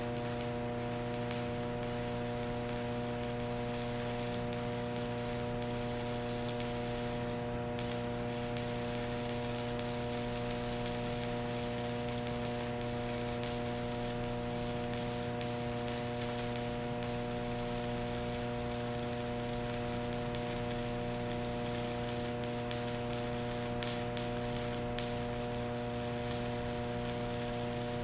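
Stick welding with a Hobart 6013 rod: the arc burns with a steady hiss, over a constant electrical hum.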